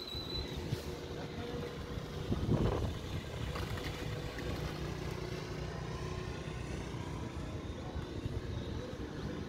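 Steady outdoor road-traffic noise, the low hum of distant vehicle engines, with one vehicle passing more loudly about two and a half seconds in.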